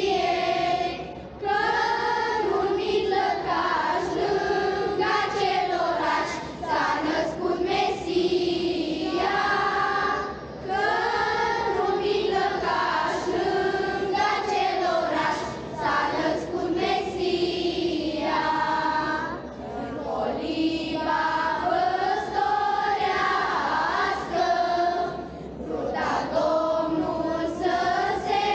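Children's choir singing a Romanian Christmas carol (colindă), in phrases with short breaks between them.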